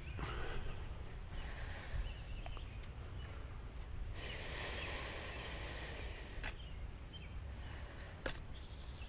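Outdoor farm ambience: a fluctuating low rumble of wind on the microphone, with a few faint short animal or bird calls and a couple of sharp clicks.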